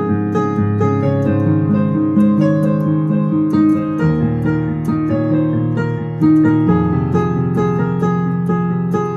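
Piano playing a flowing passage of many notes in both hands, the left hand carrying a melody in the bass under the right-hand figures. The bass notes change about four seconds in and again near seven seconds.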